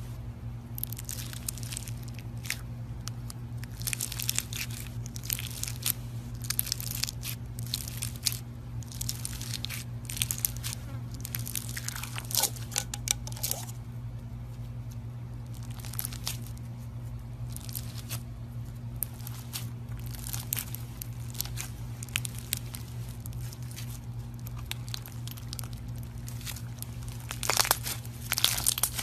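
Slime being squeezed and worked, giving off dense crisp crackling and popping clicks, with a louder flurry near the end.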